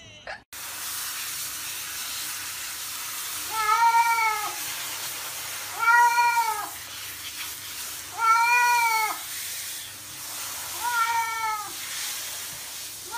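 A cat meowing four times, roughly every two and a half seconds, each meow a drawn-out call that rises and falls in pitch, over a steady background hiss.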